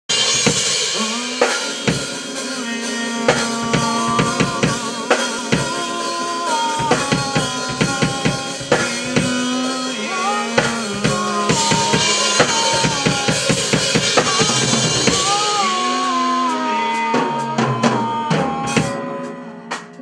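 Live band playing an instrumental soul-funk groove: drum kit with kick and snare hits, electric bass line and a lead melody on top. The music drops away near the end.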